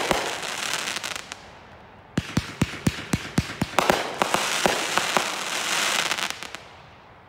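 Turf War Brothers firework going off: a burst of glittering stars crackles and fades, then about two seconds in a rapid run of sharp shots and breaks sets off dense crackling that builds and dies away near the end.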